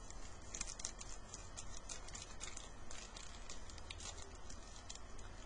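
A hockey card pack's wrapper crinkling in irregular small clicks as it is worked open by hand, a pack that is hard to open. A steady low hum runs underneath.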